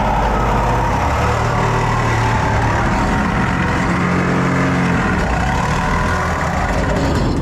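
A loud motor-driven machine running steadily, with a low drone that shifts slightly in pitch, shutting off suddenly at the end.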